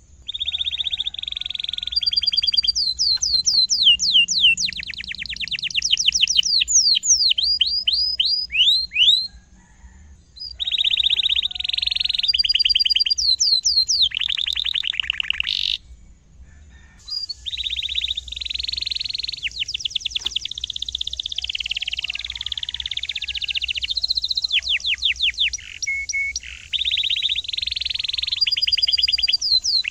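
Domestic canary singing a long, continuous song: rolling buzzy trills alternate with runs of rapid, steeply falling whistled notes, several a second. There are brief breaks about ten and sixteen seconds in.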